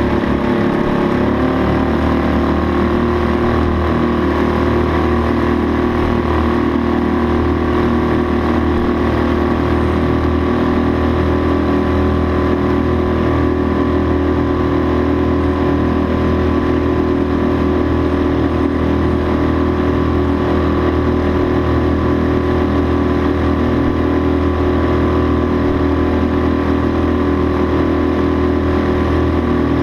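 Suzuki 2.5 hp single-cylinder four-stroke outboard motor running steadily, pushing a small boat along. Its pitch rises slightly in the first second or so, then holds steady.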